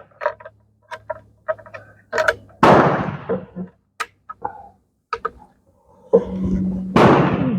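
Two rifle shots about four and a half seconds apart, each a sharp report with an echoing tail, with smaller clicks and knocks in between.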